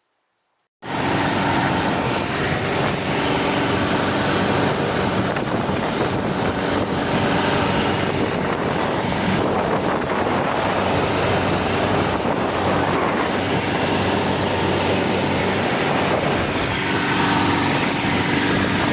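Longtail boat engine running steadily and loud, with wind noise on the microphone. It starts abruptly about a second in and cuts off at the end.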